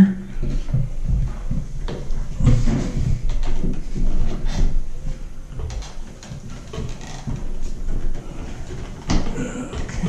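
Hand-work noise of fastening a ground wire and ground screw in an electrical wall box: scattered small clicks, scrapes and rustles of wire and tools, irregular and unrhythmic.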